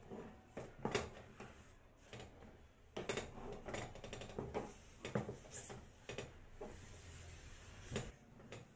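Wooden paddle stirring and beating thick finger-millet dhido dough in a steel pot, with irregular knocks and scrapes against the pot's side.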